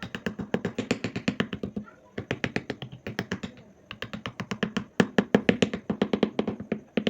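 Fast, even tapping strikes, about nine a second, in three runs with short breaks about two and four seconds in; the strikes get louder about five seconds in.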